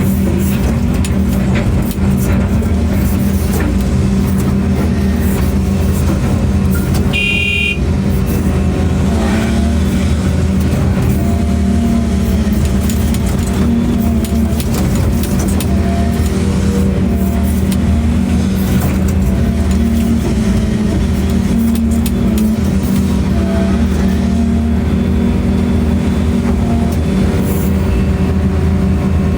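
Steady, unchanging vehicle engine drone, with a short high beep about seven seconds in.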